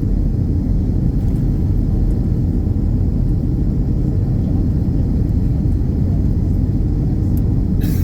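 Jet airliner's engines as a steady, deep rumble during takeoff, with a brief higher-pitched noise just before the end.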